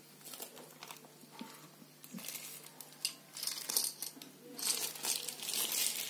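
Plastic packaging and bubble wrap crinkling in irregular bursts as cables are handled and pulled out, louder in the second half.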